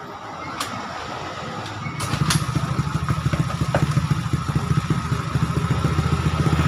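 Rusi Venus scooter's GY6 single-cylinder four-stroke engine running, with a fast even pulsing and a steady whine. It grows much louder about two seconds in, around two sharp clicks, after its hard-start ignition wiring was redone.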